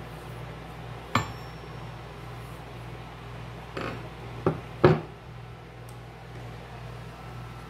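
A metal chainsaw combination wrench (scrench) handled and knocked against a hard tabletop: four sharp metallic knocks and clinks, the loudest near five seconds in. A steady low hum runs underneath.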